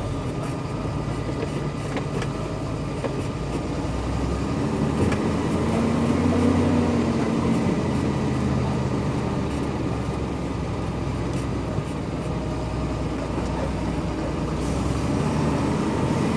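A Ford Cargo 2628 dump truck's diesel engine runs steadily as the truck drives slowly along a dirt farm track. The engine note rises and then falls again about a third of the way in.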